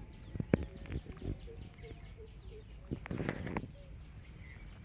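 Outdoor ambience with a bird calling in a quick repeated series of short notes. Over it come a few sharp clicks and a short rustle about three seconds in, from the bait being handled over a plastic sack.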